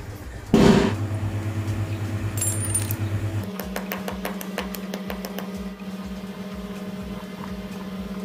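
Sharp metallic clinks and taps as a blade is struck against small steel ball bearings to part them from their outer rings, over steady background music. A short, loud burst of noise comes about half a second in.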